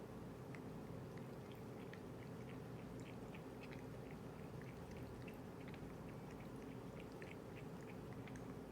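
A cat lapping water with its tongue: quick, faint wet clicks, about three or four a second, over a steady low hum.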